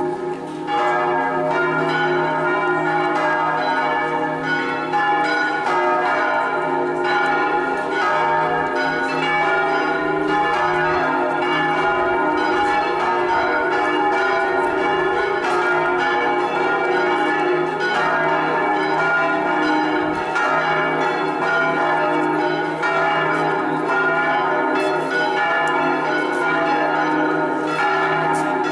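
Five of the six swinging bronze bells in San Rufino cathedral's E-flat ring, swung electrically in the Italian 'a slancio' style, ringing together in a solemn full peal (distesa) that marks the start of the solemn Mass. Their strokes overlap continuously.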